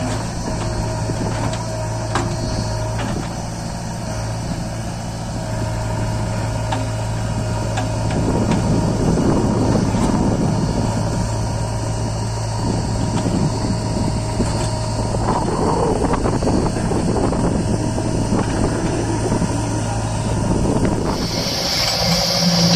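Heavy diesel engine of a JCB 3DX backhoe loader running steadily. It grows rougher and louder for several seconds in the middle, with a few faint clicks. A high, steady tone starts near the end.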